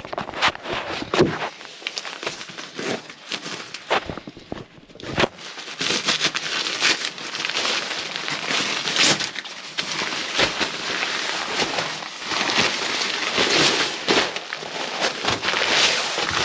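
Crinkling and rustling of a nylon Rapide SL inflatable sleeping pad as it is pulled from its stuff sack and unrolled onto the tent floor. The rustling comes in short bursts at first and grows denser and louder from about six seconds in.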